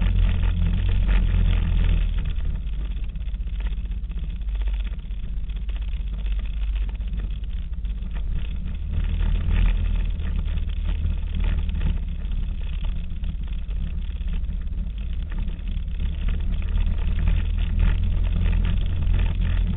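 ATV engine running at low, steady revs while riding downhill, a continuous low rumble that eases off a couple of seconds in and picks up again near the end.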